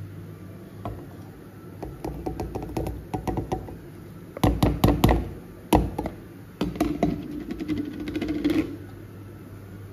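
Chopped tomatoes, coriander and green chilli tipped from a plastic bowl into a stainless steel mixer-grinder jar: clusters of quick taps and knocks as the pieces land in the steel jar and the bowl is worked over it, loudest about halfway through.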